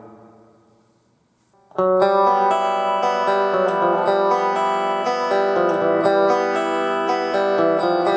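Guitar played through a Roland BA-330 stereo portable amplifier: a fading ring, a short near-quiet gap, then playing starts about two seconds in with ringing notes and chords that carry on.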